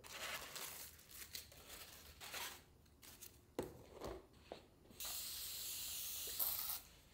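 Paper wrappers around peaches crinkling and rustling as the fruit is lifted out of a cardboard box, with a few light knocks. Then a spray bottle of ethanol hisses in one steady spray lasting about two seconds.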